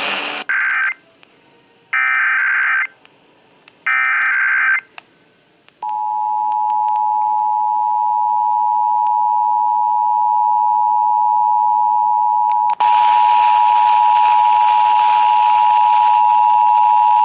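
Emergency Alert System SAME header: three short, buzzy data-burst screeches about a second apart. About six seconds in they are followed by the EAS two-tone attention signal (853 and 960 Hz together), a loud, steady, harsh dual tone that holds on. About thirteen seconds in, a hiss joins the tone.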